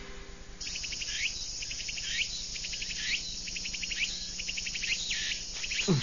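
Cicada song: a fast, even pulsing buzz that starts about half a second in and is broken about once a second by a sweeping call.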